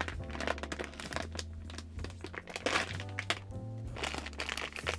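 Plastic anti-static bag crinkling and crackling as it is pulled open around a hard drive, in many short sharp crackles, over background music with a low bass line.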